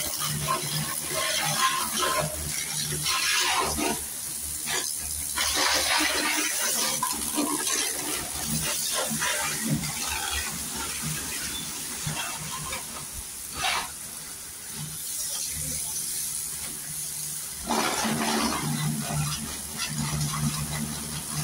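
Water spraying in uneven surges, with a low steady hum coming and going underneath, as the scooter is washed during its service.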